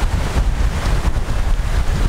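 Wind buffeting the microphone, a loud, uneven low rumble over a steady hiss of wind and surf on the open sea.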